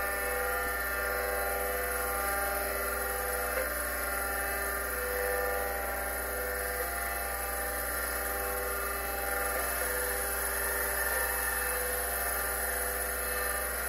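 Seagate ST-412 10 MB MFM hard drive spinning on its own, a steady motor whine made of many unchanging tones. It doesn't sound super healthy: the owner puts the noise down to the spindle bearings rather than the heads scraping the platters.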